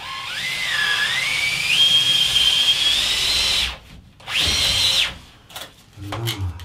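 Cordless drill-driver driving a screw into drywall: the motor whine climbs in pitch as it speeds up, runs for about three and a half seconds and stops, then gives one shorter burst at high speed, followed by a few light knocks.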